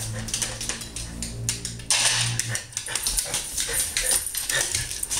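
A dog vocalizing in a low, drawn-out groan. About two seconds in, a rustling clatter starts and runs on alongside it.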